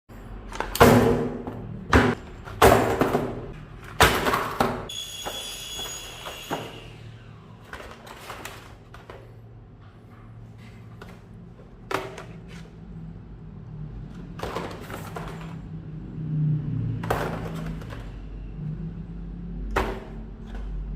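Knocks and rustles of packaging being handled, irregular and loudest in the first few seconds, with a brief high ringing tone about five seconds in, over a steady low hum.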